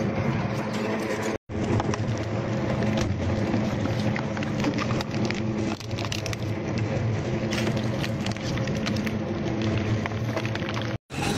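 Industrial double-shaft shredder running with a steady drone while its blades crack and crunch plastic oil jugs, a dense crackle of snapping plastic. The sound drops out for an instant about a second and a half in and again near the end.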